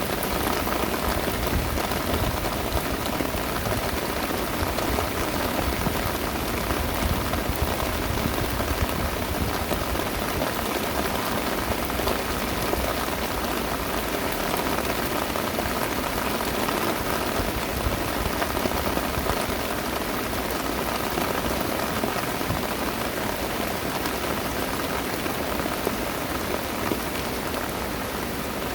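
Heavy rain pouring down steadily, a dense hiss of many drops striking with fine sharp patters throughout.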